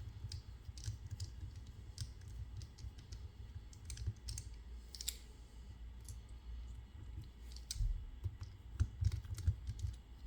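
Scattered light clicks and taps of small metal lock parts and a tool being handled, over a low rumble of handling noise, as a lock is taken apart.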